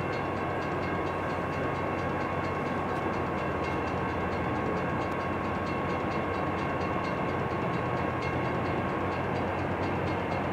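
Loram rail grinder working the rails: a steady loud grinding roar with a fast, even rattle and a steady high whine that stops near the end.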